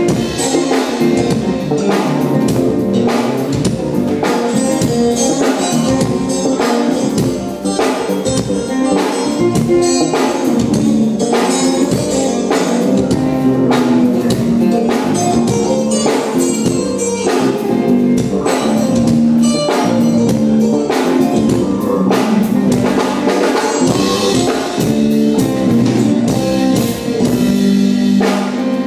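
Live band jamming: a drum kit keeps a steady beat under amplified electric guitars.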